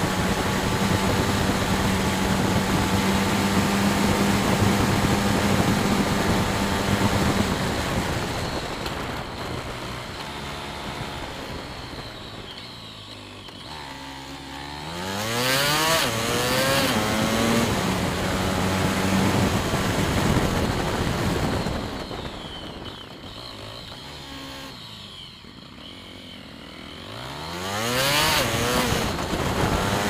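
Motorcycle engine running while riding, with a haze of wind and road noise. It holds a steady note, eases off with falling pitch, then revs back up with a rising whine about halfway through, and does the same again near the end.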